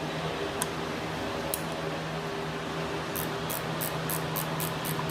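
Steady low hum with a couple of single clicks, then from about three seconds in a quick, even run of short metallic clicks, about three a second: a socket ratchet being worked on a motorcycle's handlebar fasteners.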